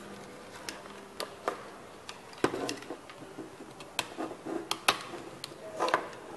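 A scatter of light clicks and knocks as thin wooden robot-chassis pieces are handled and pressed together by hand, fitting the two halves of the frame into each other.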